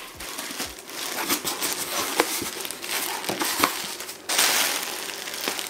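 Plastic bags of box insulation crinkling and rustling as they are pulled and shifted inside a cardboard shipping box, with small knocks against the cardboard. A louder, denser crinkle comes about four seconds in and lasts about a second.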